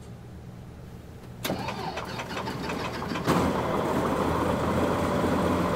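A fuel-injected light-aircraft piston engine is cranked by its electric starter from about a second and a half in. It catches about two seconds later and runs steadily, heard from inside the cockpit. The start is made with the throttle cracked and the mixture in idle cutoff, with the iStart computer-controlled injection supplying the starting fuel.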